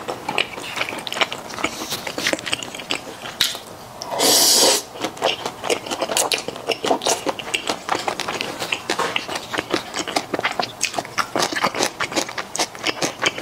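Close-miked eating of saucy fried rice noodles: a dense run of wet chewing, mouth smacks and clicks. About four seconds in there is one louder half-second rush of noise.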